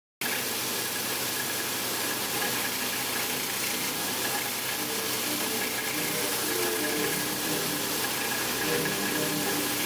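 Motor-driven grey abrasive polishing wheel spinning against a steel knife blade, cutting in abruptly after silence: a steady, even hiss of abrasion over the motor's running noise as rust is worked off the blade.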